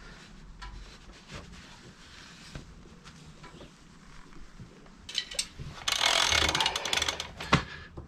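A few faint clicks and knocks, then from about five seconds in a socket ratchet clicking rapidly as it winds the loosened rear axle nut off, with one sharp knock near the end.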